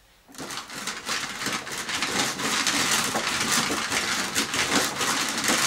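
Hand-cranked drum carder turning, its toothed drums combing wool: a dense, scratchy rattle of many fine clicks that starts a moment in and grows louder over the first two seconds, then runs on steadily.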